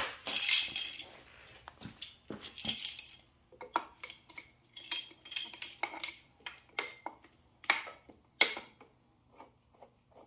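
Three-jaw puller being fitted to the engine's crankshaft balancer: a run of irregular metallic clinks and clatters, some ringing briefly, as the steel jaws and forcing screw knock against the balancer. The clinks are thick in the first few seconds, then come more spaced out and grow fainter toward the end.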